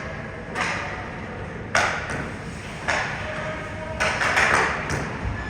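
Sharp knocks about once a second, each ringing briefly in a large echoing hall, over a steady background hum of the venue.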